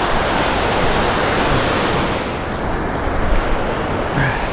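Ocean surf: breaking waves and foamy wash rushing in around the shallows as a steady, loud roar of water, easing slightly about halfway through.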